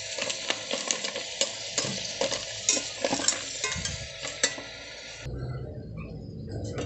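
Green mussels in their shells being stirred in a metal pot of hot oil: shells clacking against each other and the pot amid a sizzle. The clatter and sizzle stop about five seconds in.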